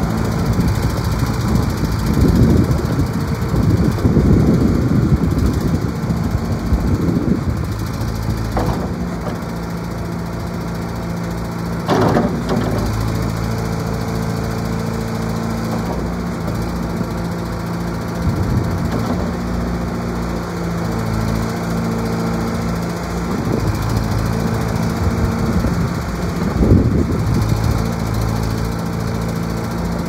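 John Deere 410D backhoe's diesel engine running while the backhoe boom is worked on its hydraulics. The engine gets louder and rougher in stretches, early on and again near the end, and there is one sharp knock about twelve seconds in.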